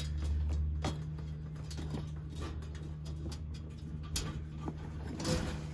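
Light clicks and rattles of a wire cage trap being handled, with fabric rustling, over a steady low hum. A louder thump comes at the very end.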